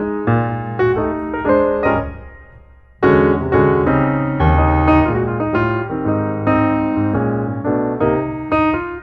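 Solo piano music playing chords and melody. The playing dies away about two seconds in and starts again, louder, about a second later.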